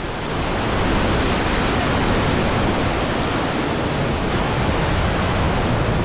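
Steady, loud rush of a large waterfall in full monsoon flow: dense falling water with no pitch or rhythm, swelling up over the first second and then holding even.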